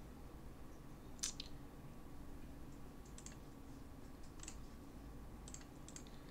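A handful of faint, irregularly spaced clicks of a computer mouse, the sharpest about a second in and a few more in the second half, over quiet room tone.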